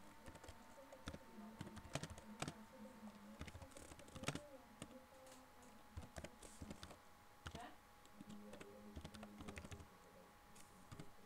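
Faint computer keyboard typing: irregular keystrokes in short runs, with a few louder key strikes.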